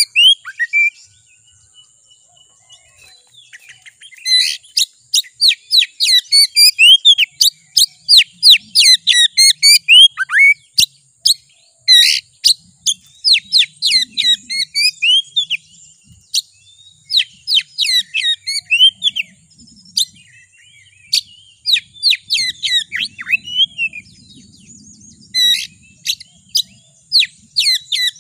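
Oriental magpie-robin singing loudly in quick runs of sharp, downward-swept whistled notes: a dense stretch of song starts about four seconds in, then it thins to scattered phrases with a fresh burst near the end.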